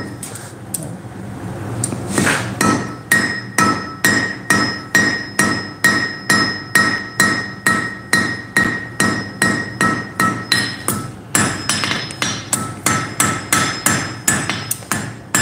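Hand hammer striking hot iron on an anvil in a steady run of about three blows a second, each blow leaving a bright ringing tone from the anvil, while a bar is drawn out to a taper. There is a short pause about a second in, and the blows come quicker near the end.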